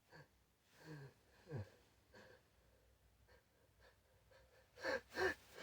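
A person's short, faint breathy gasps and small voiced sounds, then two louder quick gasps near the end as a sneeze builds from a nose tickled with grass blades.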